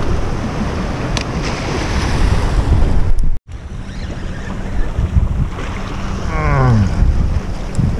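Surf washing against jetty rocks, with wind buffeting the microphone. The sound cuts out completely for a moment a little under halfway through. Near the end comes a short voice-like sound that falls in pitch.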